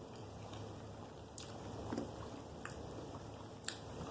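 A person chewing a fried shrimp and oyster po' boy close to the microphone. The chewing is quiet, with a few short, sharp mouth clicks spread through it.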